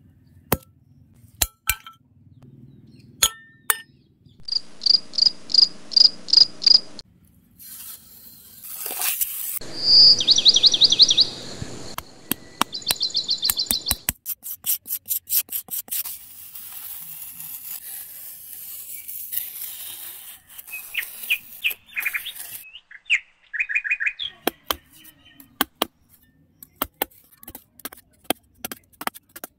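A string of short high chirps and trills like birds and insects, followed by many sharp clicks and scrapes as a small metal spade cuts into damp sand.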